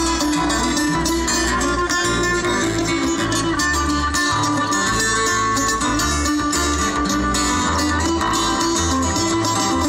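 Acoustic string band playing live: two acoustic guitars, fiddle, banjo and acoustic bass guitar together, in a folk/bluegrass style with a steady bass line underneath.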